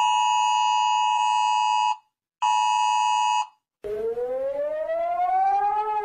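iPhone emergency alert tone: a steady two-tone alarm sounds for about two seconds, then again for about a second after a short gap. About four seconds in, Singapore's civil defence warning siren starts, a wail rising slowly in pitch.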